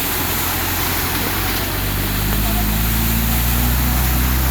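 A motor vehicle's engine running close by, its low steady hum coming in and growing louder about two seconds in, over a constant rush of heavy rain and floodwater.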